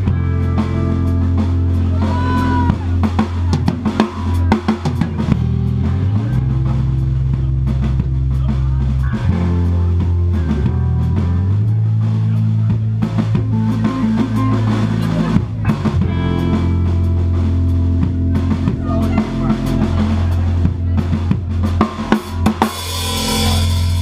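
A rock band playing live with no singing. A full drum kit (snare, bass drum and cymbals) drives over held bass notes that change every few seconds, with electric guitar. A loud cymbal wash comes in near the end.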